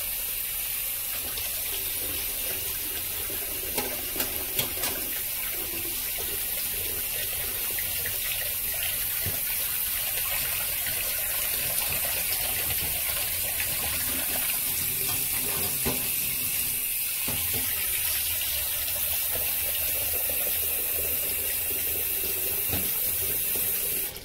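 Steady hiss of falling or running water, with a few sharp ticks about four seconds in; it cuts off suddenly at the end.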